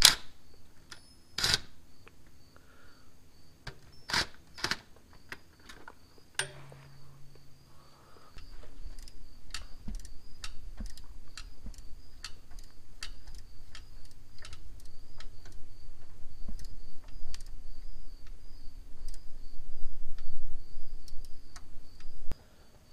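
Scattered light metallic clicks and taps as the halves of a two-piece clutch brake and its fasteners are handled and fitted onto a truck transmission's input shaft. From about eight seconds in, a low rumble runs underneath, growing louder, until it drops away just before the end.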